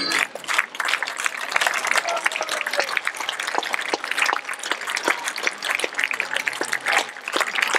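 Audience applauding, many hands clapping unevenly, with voices in the crowd, as the dance music stops at the very start.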